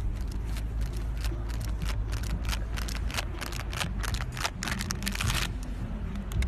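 Wind rumbling on a phone microphone, with a quick run of clicks and rustles from about a second and a half in until past five seconds.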